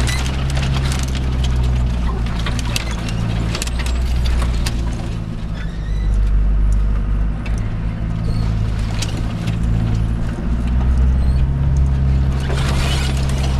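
Land Rover Discovery's 200Tdi 2.5-litre four-cylinder turbo-diesel running at low speed, heard from inside the cabin, with scattered clicks, knocks and rattles as the vehicle rolls over a rough, rutted lane. A rustling scrape near the end.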